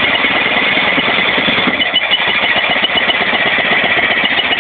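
Small Mumford steam engine running fast on compressed air: a loud, steady hiss and whistle of escaping air over rapid, even exhaust beats.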